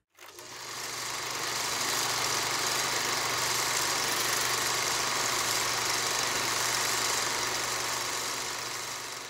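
Film projector sound effect: a steady mechanical whirring hiss over a low hum, fading in over the first second and fading out near the end.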